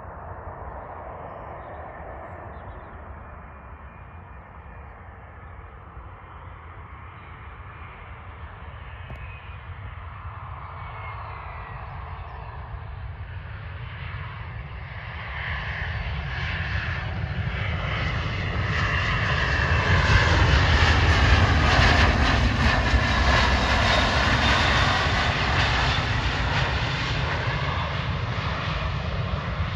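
SAS Bombardier CRJ900 regional jet landing. Its turbofans are faint on approach, then grow much louder from about halfway through as it touches down and rolls out along the runway. The engine noise is loudest about two-thirds of the way in, with a whine that sweeps up and down as the jet passes.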